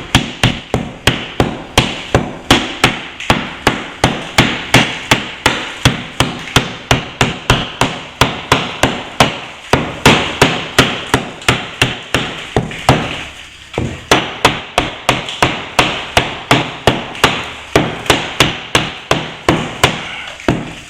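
Hammer blows chipping at plaster along a crack where the wall meets the ceiling, opening the crack up for repair. The strikes come steadily at about three a second, with a short pause about two-thirds of the way through.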